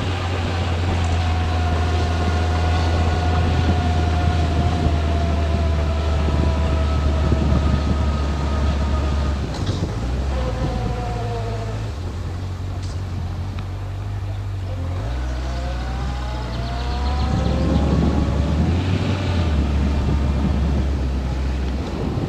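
Motorcycle engine running under way, its pitch falling slowly as the bike eases off, then rising again as it pulls away, over a strong low rumble of wind and road noise on the microphone.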